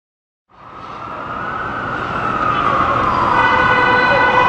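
An emergency vehicle siren wailing slowly, its pitch sliding down and back up, over the steady noise of city street traffic. It fades in about half a second in and keeps getting louder.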